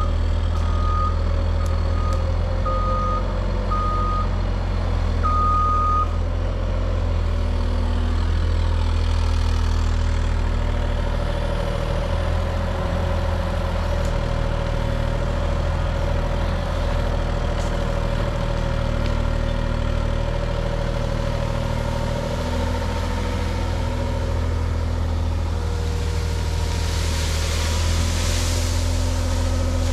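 Diesel engine running steadily under a Cat 303.5 mini excavator at work, a deep rumble with a whine that shifts slightly in pitch. Its travel alarm beeps about six times in the first six seconds as it tracks across the yard. Near the end comes a rustling hiss of brush as a rake-load is swung close.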